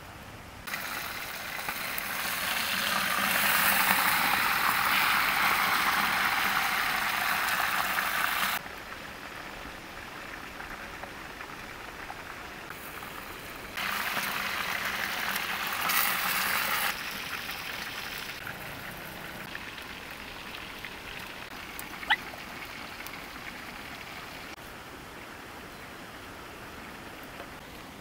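Eels sizzling in a clay pot: a loud steady hiss lasting several seconds that stops abruptly, then after a quieter stretch a second, shorter burst of sizzling. Later comes a single sharp click over a low steady hiss.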